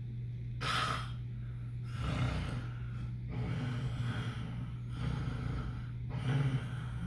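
A sleeper snoring: a short sharp intake about half a second in, then a run of rough breaths, each about a second long, over a steady low hum.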